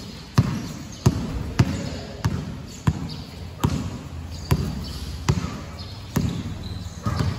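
A basketball being dribbled on a gym floor: a steady run of about ten bounces, a little over one a second.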